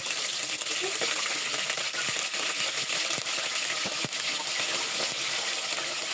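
Food sizzling as it fries, with a metal utensil stirring and clinking against the pan a few times.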